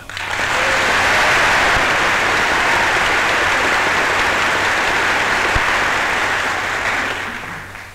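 A packed chamber of members of Congress applauding, heard in an old newsreel recording. The ovation swells within the first second, holds steady, and dies away near the end.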